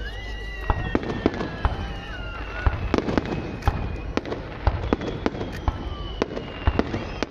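Starmine fireworks barrage firing in rapid succession: a dense run of sharp bangs and crackling bursts over a constant rumble, with long whistling tones drawn out above them.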